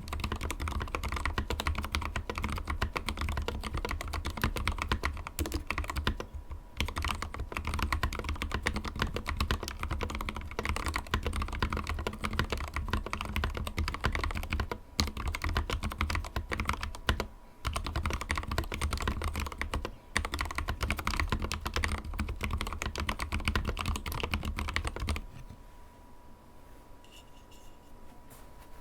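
Fast, continuous typing on a Drop CTRL mechanical keyboard with lubed Gateron Black Ink linear switches and clipped, lubed stock stabilizers, broken by a few brief pauses. Near the end the typing stops, leaving a faint steady tone.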